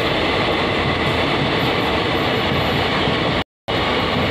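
Passenger coaches of an express train passing at speed without stopping: a steady, loud rush of wheel and rail noise. The sound cuts out completely for a moment about three and a half seconds in.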